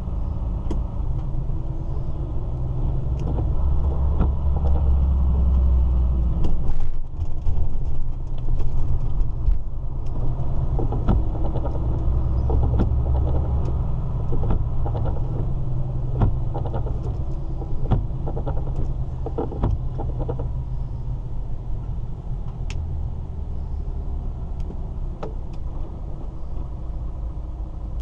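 Inside the cab of a DAF truck moving slowly: the diesel engine and road noise make a steady low rumble, which dips briefly about seven seconds in. Scattered sharp clicks sound over it.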